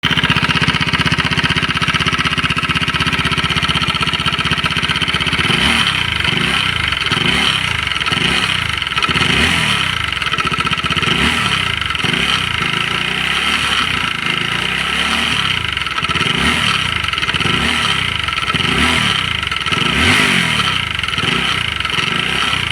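Honda CBR 150's single-cylinder engine idling, then revved in short repeated blips from about six seconds in, with a steady high mechanical noise running over it. The mechanic traces this noise to worn camshaft holders, play in the connecting rod and a loose piston.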